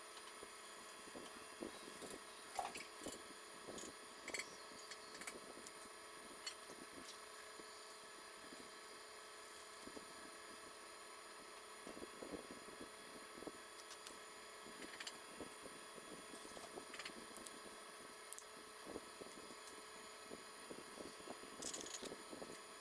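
Faint, scattered small clicks and taps of a headset's plastic parts being handled during repair, over a steady low hiss.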